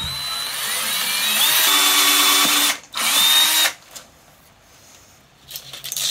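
Orange Black+Decker cordless drill boring a hole through a thin mounting plate. The motor whine rises as it spins up and runs for nearly three seconds, stops briefly, then runs under a second more.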